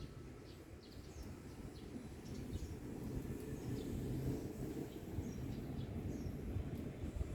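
Small birds chirping in short, high calls scattered through, over a steady low outdoor rumble.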